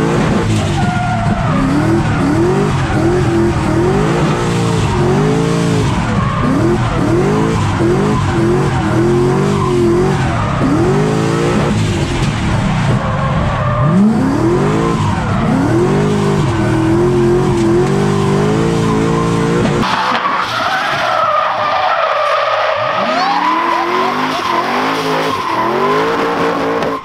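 Supercharged Ford Mustang drift car drifting, its engine revs rising and falling over and over as the throttle is worked, over tyre squeal. About twenty seconds in the deep low end of the engine drops away, leaving a thinner engine note and tyre noise.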